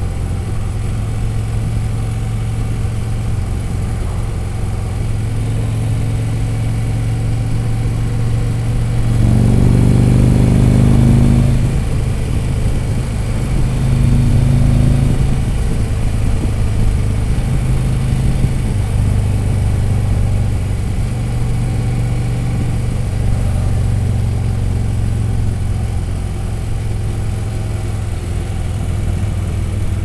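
Touring motorcycle's engine running at road speed, heard from the rider's seat over wind and road noise. About nine seconds in the engine note rises and grows louder for a couple of seconds, then swells again briefly a few seconds later.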